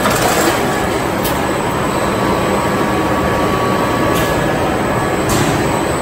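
Clay brick extrusion and cutting line running, a steady, loud machinery din from the extruder, roller conveyors and cutter, with a few brief hisses.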